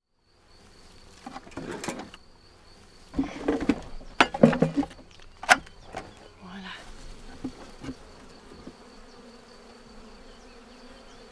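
A metal hive tool scraping and knocking against a wooden beehive, with a run of sharp clacks in the first half. Honeybees buzz steadily throughout.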